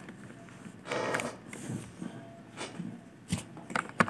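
A short, noisy breath through the nose into the microphone about a second in, then a few sharp clicks from the computer's mouse and keyboard near the end.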